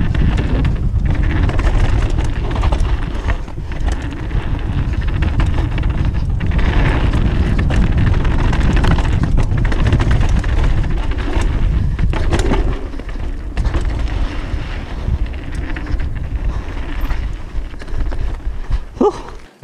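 Downhill mountain bike riding fast down a rough dirt trail: a steady low rumble of tyres and wind buffeting the action camera's microphone, with rattling and knocks from the bike over the bumps. It eases somewhat in the second half as the bike slows.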